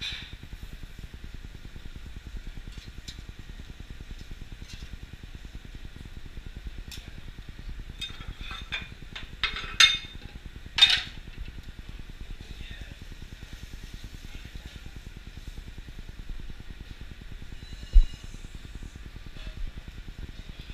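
Metal cookware and utensils clinking and clanking on a commercial gas range over a steady kitchen hiss, with a cluster of sharp clanks about eight to eleven seconds in and a single low thump near the end.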